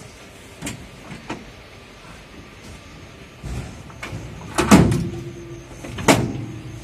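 Passenger train starting to move off: a low rumble builds, then two loud metallic clanks about a second and a half apart, each with a short ringing tail, as the couplings between the carriages take up slack.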